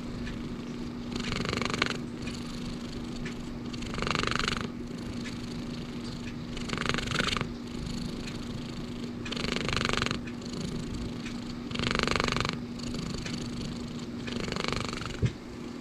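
Domestic cat purring, with a raspy breath about every two and a half seconds, six in all, that sounds like snoring: the purr and the snore are hard to tell apart.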